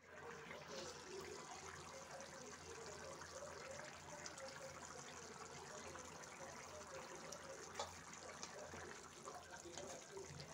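Mixed-vegetable curry gravy bubbling at a simmer in a pan, a faint steady bubbling with small pops.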